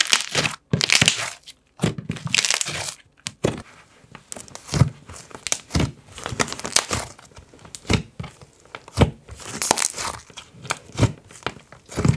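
Thick slime being squeezed by hand and pressed and poked down into a plastic jar, giving irregular crackles, clicks and small pops with short bursts of hiss.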